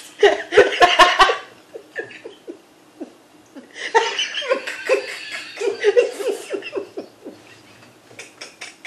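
Two women laughing hard in two bouts: a short one at the start and a longer one from about four seconds in.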